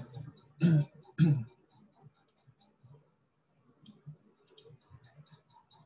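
Two short bits of a man's voice about a second in, then faint, rapid clicking at a computer, mouse and keys, densest near the end.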